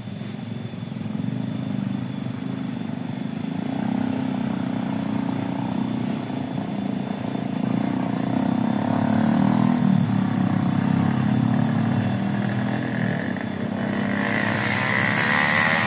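A small engine runs steadily and grows louder, with a higher rising whine near the end.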